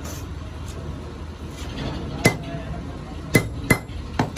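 A hammer striking metal four times, each blow ringing briefly, over a steady low hum.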